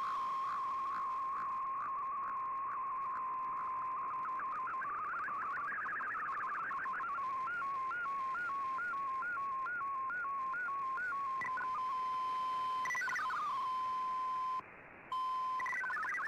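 Shortwave radio receiving an MFSK digital-mode data broadcast over a background hiss. It opens as a steady tone with regular pips, turns to warbling data tones and then a run of stepping tones at about three a second, and settles into a plain steady tone. That tone cuts out for about half a second near the end, and fast multi-tone data starts just before the end.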